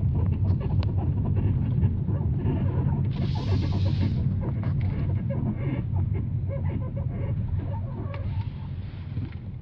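Hyundai Elantra AD's front suspension squeaking and creaking in short, irregular bursts over a steady low rumble, which the owner thinks is the steering rack. A brief hiss comes about three seconds in.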